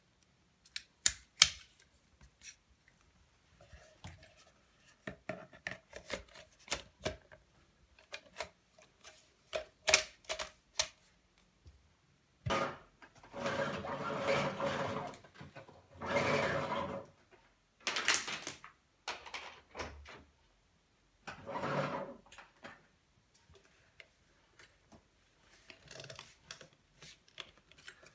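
Handling noises from a vacuum cleaner's hose and wand while it is switched off: sharp plastic clicks as the hose connector is pushed into the inlet, then faint rubbing and a couple of longer scraping, rustling stretches as the corrugated hose and metal tube are moved about.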